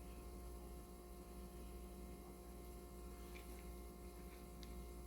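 Near silence with a steady low electrical hum, and a few faint light clicks about three and a half to four and a half seconds in.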